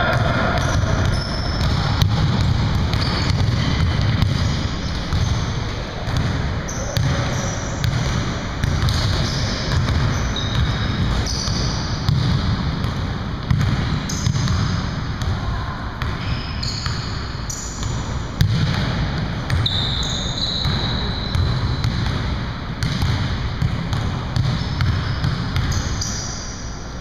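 Basketballs bouncing on a hardwood gym floor during play, with short high sneaker squeaks scattered throughout and players' voices underneath.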